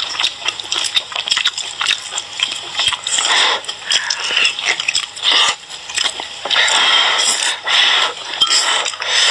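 Close-up eating sounds of boiled sea snails: wet chewing and slurping of the snail meat, in irregular bursts with many sharp clicks.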